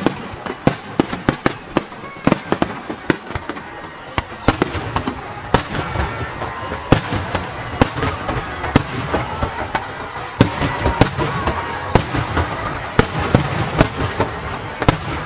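Aerial firework shells bursting in quick succession, many sharp bangs over continuous crackling. The barrage grows denser about a third of the way in.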